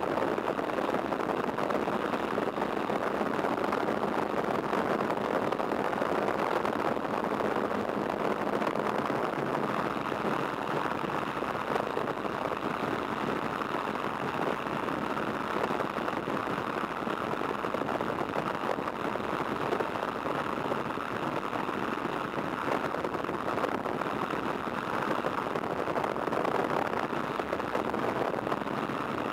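A de Havilland Tiger Moth's Gipsy Major four-cylinder engine running at full takeoff power, mixed with propeller and slipstream wind noise in the open cockpit, as the biplane takes off from grass and climbs away. The sound is loud and steady throughout, with a faint low hum that fades out about ten seconds in.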